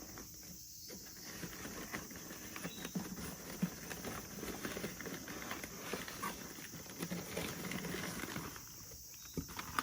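An African grey parrot chick making a few short, soft low calls among scratchy patter and taps.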